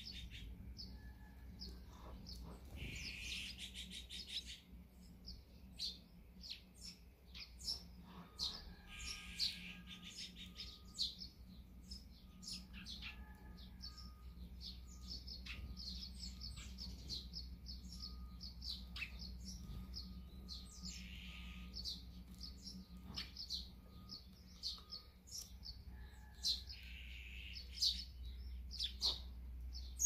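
Eurasian tree sparrows chirping at a seed feeder: many short, high chirps all through, with a few brief harsher rasps.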